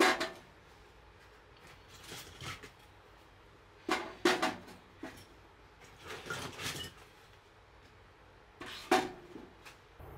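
Pieces of split firewood knocking and clattering against each other and the metal of a small stainless-steel wood stove as they are stacked inside it, in about five separate bursts of knocks and clanks.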